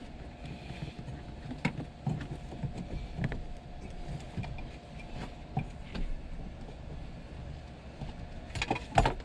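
Hands and tools working on parts: scattered light clicks and knocks, with a louder clatter near the end, over a faint steady hum.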